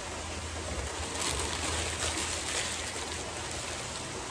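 Steady splash of a backyard pool's rock waterfall, with a low rumble underneath. Faint chewing sounds come in about a second in.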